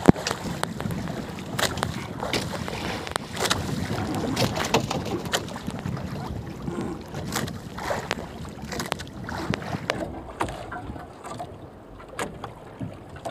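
Irregular knocks and clicks of gear being handled in a small fishing boat at sea, over a steady hiss of wind and water.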